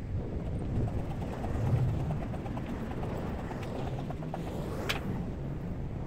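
Wood fire burning in a downdraft wood stove: a steady low rumble with scattered small crackles and one sharp pop about five seconds in.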